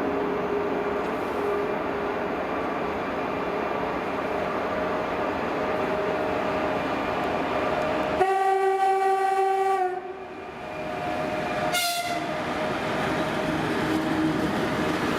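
A 2TE116 diesel locomotive running by with a loaded tank train, its engine and wheels making a steady noise. About eight seconds in it sounds its horn in one blast of nearly two seconds. Some two seconds later it gives a very short toot.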